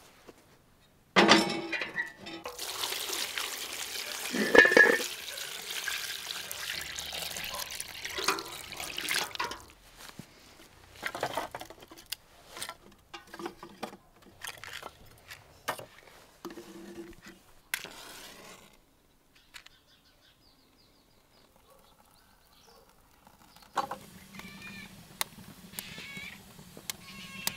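Water running and splashing for several seconds, then scattered short knocks and clatter of things being handled.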